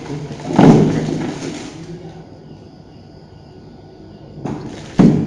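Handling noise from a handheld digital multimeter being held and its controls worked. A loud thump with a rustle trailing off comes about half a second in, and another sharp thump near the end.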